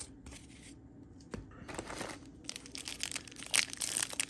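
A trading-card pack wrapper crinkling and tearing as a new pack is opened. It is faint at first and grows into dense, sharp crackles over the last two seconds.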